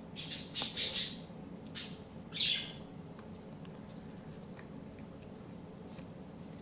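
White-faced capuchin monkey giving a few short, high squeaky chirps in the first three seconds, followed by a few faint clicks.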